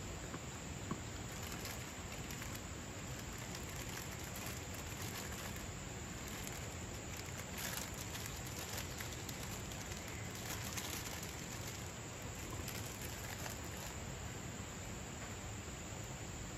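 Steady rush of a shallow stream running over rocks, with a few faint clicks and rustles from hands handling chillies and a plastic packet.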